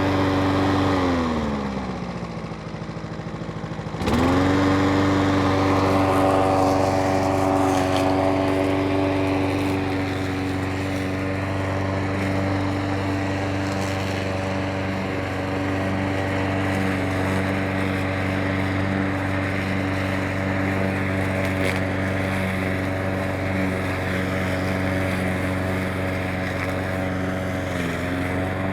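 Petrol lawn mower engine running. About a second in its speed sags for a few seconds, then snaps back up at about four seconds and runs at a steady speed, with a brief small dip near the end.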